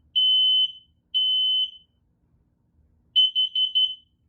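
Smoke alarm going off from canned test smoke, sounding the three-beep evacuation pattern: loud, high half-second beeps with short gaps, then a pause. Near the end the next round starts as a choppier, stuttering beep.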